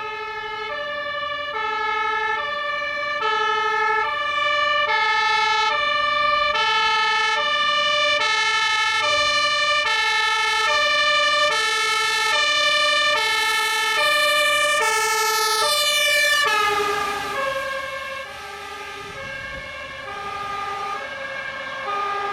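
Fire engine's two-tone siren alternating steadily between a high and a low note, each held a little under a second. About three-quarters of the way in, the pitch drops as the truck passes, and the siren carries on lower and quieter as it drives away.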